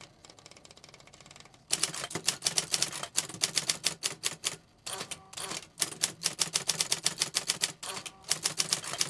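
Typewriter typing quickly, its typebars striking the paper in rapid clicks about eight to ten a second. The typing starts a little under two seconds in and breaks off briefly twice.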